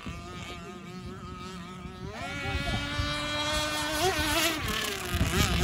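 Radio-controlled speedboat motor running flat out with a high, buzzing whine. The pitch wavers, then climbs sharply about two seconds in and holds high as the boat speeds up.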